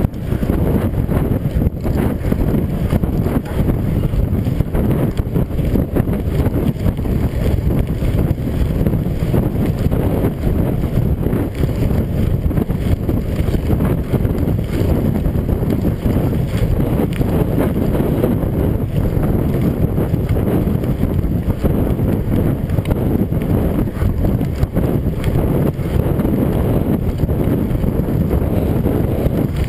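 Steady wind rumble buffeting the camera's microphone as a mountain bike rides fast down a gravel road, mixed with the rumble of the tyres on the gravel.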